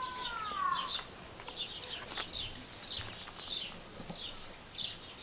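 Small songbirds chirping, short high calls repeating two or three times a second. In the first second a longer, lower call with an arching pitch fades out under them.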